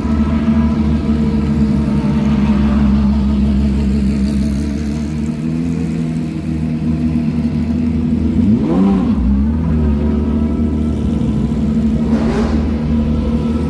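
Porsche 911 GT3 Cup (992) race car flat-six engine idling with a lumpy, steady note, with a quick throttle blip about two-thirds of the way through and a smaller one near the end.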